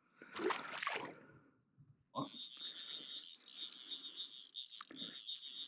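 A short splash of water in the first second or so, then a steady high-pitched insect chorus that starts suddenly about two seconds in and carries on.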